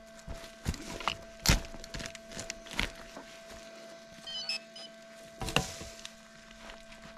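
Scattered crunching knocks of footsteps and digging in dry ground while metal detecting, the loudest about a second and a half in and another about five and a half seconds in, over a faint steady hum.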